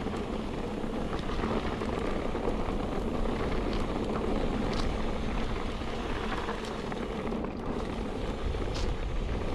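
Mountain bike rolling fast down a dirt trail: a steady rush of tyre noise and wind on the microphone, with a few sharp clicks.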